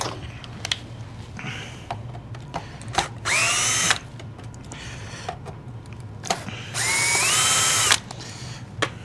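Cordless drill-driver backing screws out of a Dyson DC17's plastic handle in two short runs, its whine rising as it spins up. The second run is longer and its pitch climbs in two steps. Light clicks and knocks of handling come between the runs.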